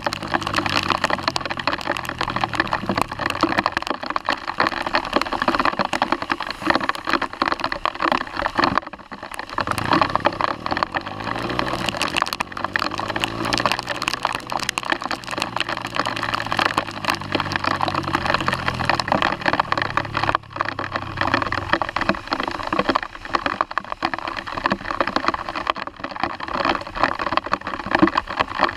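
Sinnis Apache 125 motorcycle's engine running under way, dipping and then rising in pitch as it picks up speed about ten seconds in. Over it runs a dense, constant crackle of rain and wind on the wet camera housing.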